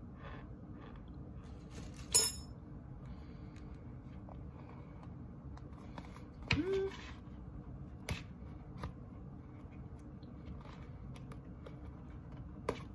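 Cardboard corn starch box being handled and its top flap worked open: soft scrapes and rustles with a few small ticks. The loudest sound is a sharp metallic clink about two seconds in, a metal spoon being set down, and about six and a half seconds in there is a short squeak that rises in pitch.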